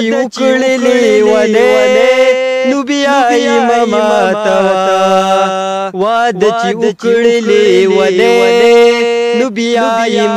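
A man singing a Pashto song in long, drawn-out, ornamented notes, pausing briefly for breath between phrases.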